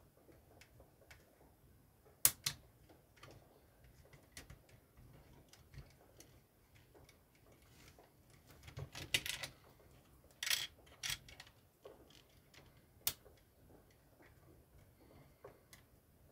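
LEGO plastic pieces being handled and pressed together by hand: scattered sharp plastic clicks with soft handling noise between them, busiest about halfway through.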